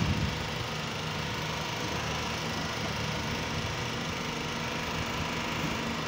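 An engine running steadily at idle, a constant low hum.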